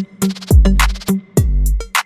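Electronic background music with a drum-machine beat: deep kick drums that drop in pitch and crisp hi-hat and snare hits.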